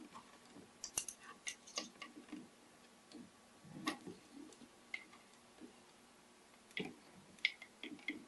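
Faint, irregular clicks and scrapes of a flat-blade screwdriver tip working in a slot at the base of a Keurig K-Elite K90's plastic shroud, prying at a hidden snap latch. The clicks come in small clusters, about a second in, around four seconds in and again near the end.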